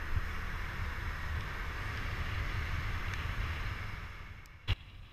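Wind rushing over the microphone over the low drone of a SYM Fighter 150 scooter riding along, easing off about four seconds in. A single sharp click near the end.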